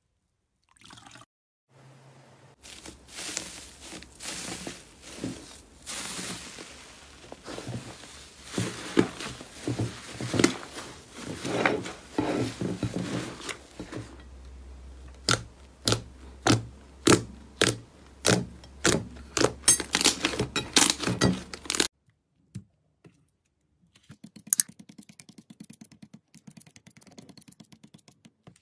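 Slime being squeezed and poked by hand. It starts with dense wet crackling and squelching, then a run of sharp pops about twice a second, and ends with faint fine crackling.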